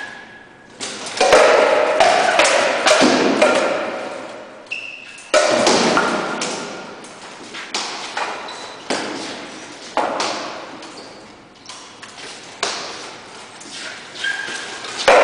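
Rattan swords striking a heater shield, a steel buckler and armour: sharp thuds and metallic clanks in flurries every few seconds, echoing in a large empty concrete hall.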